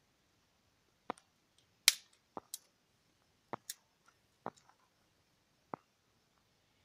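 Dry wood snapping and cracking: about eight sharp, irregular snaps over several seconds, the loudest about two seconds in.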